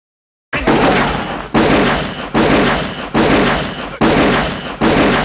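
Movie gunshot sound effect: six loud shots fired at a steady pace, about one every 0.8 seconds, each trailing off in a long echoing tail, starting about half a second in after dead silence.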